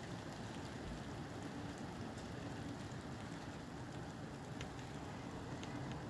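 Steady rain falling in a constant hiss, with a few faint drip ticks, over a low rush of gusty wind.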